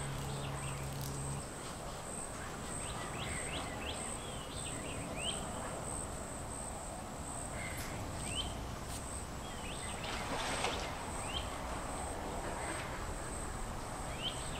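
Outdoor marsh ambience: a steady, evenly pulsing high insect drone, with short rising bird chirps at scattered moments.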